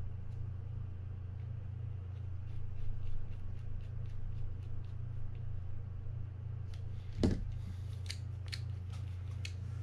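Small metallic clicks and ticks of a mini screwdriver and parts being worked on a Mitchell 300 spinning reel. A louder knock comes about seven seconds in, followed by a run of sharper clicks, all over a steady low hum.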